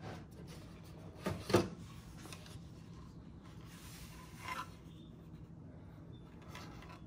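Handling noise as a disk drive is lifted out of a metal computer chassis: two short scraping knocks about a second and a half in, then softer scrapes and rubs near the middle and the end.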